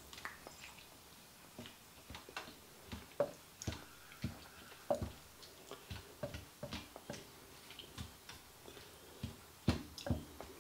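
Spatula stirring chunks of chicken in honey-soy sauce in a slow-cooker crock: faint, irregular soft knocks and taps of the spatula against the pot, a few louder ones.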